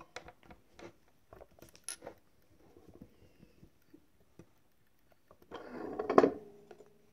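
Small metal parts clinking and tapping: eyelets and steel dies handled on a hand-operated eyelet and rivet press. About six seconds in comes a louder metallic clatter that rings briefly.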